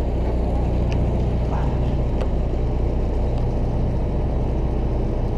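Fishing boat's engine running with a steady low drone, with a few faint clicks over it.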